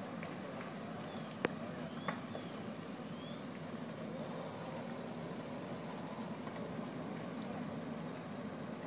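Burning boat: a steady rush and crackle of the fire, with a sharp pop about a second and a half in and a smaller one about half a second later.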